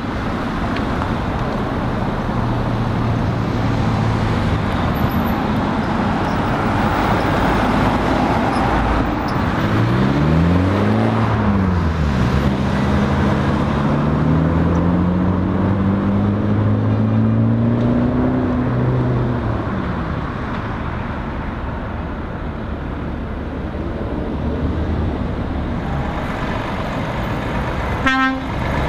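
Road traffic going round a roundabout: engines and tyres of cars and lorries, with one engine rising and falling in pitch and then climbing slowly as it pulls away. Near the end a lorry sounds its horn.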